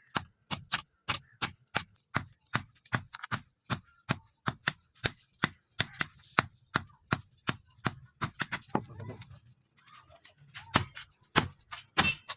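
Hammer blows on steel over an anvil, struck in a fast, even rhythm of about three or four a second, each with a high metallic ring. The hammering pauses about nine seconds in, then starts again near the end.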